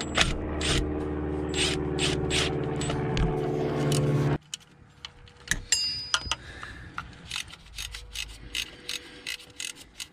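Cordless electric ratchet running for about four seconds as it backs out a bolt, then cutting off abruptly. After that comes a hand ratchet clicking in short irregular strokes.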